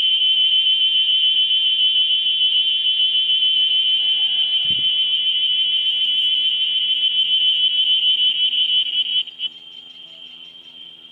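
A large cicada singing a loud, steady, high-pitched drone that cuts off abruptly about nine seconds in, leaving a fainter cicada drone behind.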